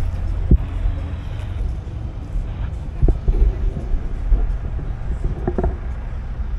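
Heavy diesel engine of an American conventional semi-truck rumbling low as it rolls slowly past, with two short thumps, the first about half a second in and the second about three seconds in.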